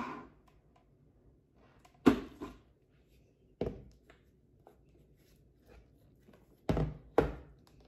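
Ninja blender's plastic pitcher clunking against the motor base and countertop as it is lifted off and handled, just after the motor spins down at the very start. A few separate sharp knocks: the loudest about two seconds in, another near the middle, and a quick pair near the end.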